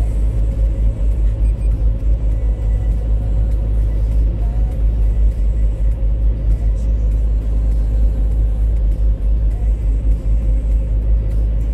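Steady low road rumble of a car driving on a paved road, heard from inside the cabin: tyre and engine noise at cruising speed.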